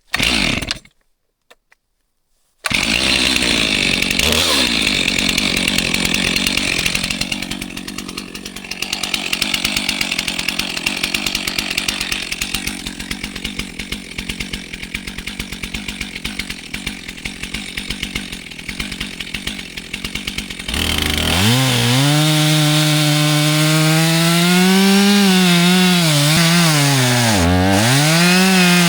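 Chainsaw felling a tree, its engine running at high speed. About two-thirds of the way through it becomes louder and more pitched, and the engine note dips and recovers several times as the chain loads in the cut.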